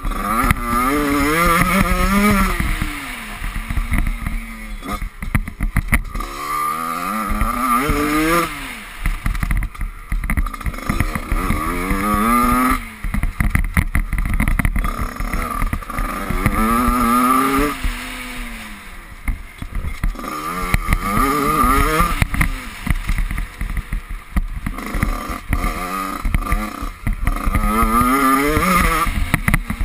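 Off-road dirt bike engine revving hard as it is ridden, its pitch climbing and then dropping off again and again, roughly every five or six seconds, as the rider accelerates, shifts and rolls off the throttle. Heard from on the bike itself, with a constant low rumble beneath it.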